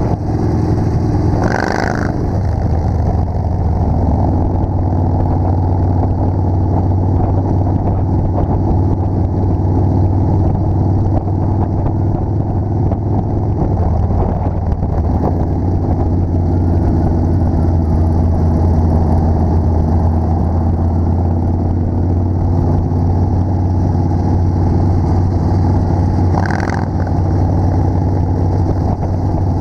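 Motorcycle engine running steadily at cruising speed, heard from a rider's helmet camera, with road and wind noise. A brief sharper sound cuts in about two seconds in and again near the end.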